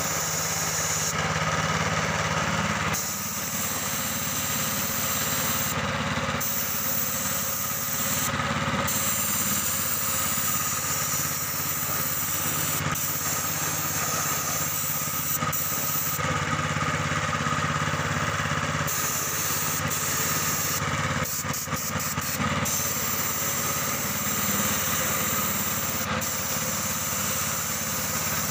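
Small petrol-engine air compressor running steadily, under the hiss of a paint spray gun that stops and starts as the trigger is released and pulled again, with several short breaks and one longer one.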